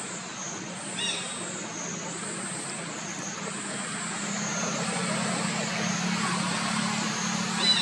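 Outdoor ambience: a steady high-pitched drone that rises and falls about once a second over a steady low hum, with two short squeaks, one about a second in and one near the end.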